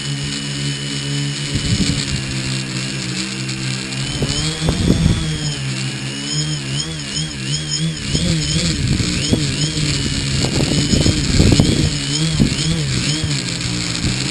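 Multirotor flight sound from a tricopter's three brushless motors and propellers, heard from the craft itself: a steady motor whine whose pitch wavers up and down from about four seconds in as the motors speed up and slow down, with gusts of low rumble on the microphone.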